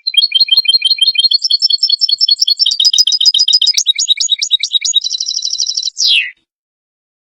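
European goldfinch song: a fast run of twittering chirps for about six seconds, turning into a buzzy trill near the end and closing with one falling note before it cuts off.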